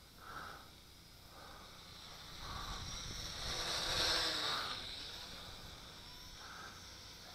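Yu Xiang 668 Q8 mini quadcopter's motors and propellers whining faintly, swelling to a peak about four seconds in as the drone flies in close, then fading away.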